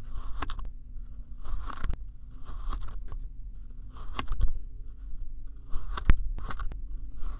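A white plastic knife slicing through kinetic sand, about seven strokes, each a short grainy crunch with a sharp click of the blade.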